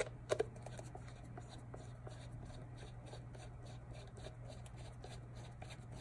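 Hand screwdriver turning a small screw into a plastic turn signal lens housing. Two sharp clicks come about a third of a second in, then faint, fairly regular ticking as the screw is turned, over a steady low hum.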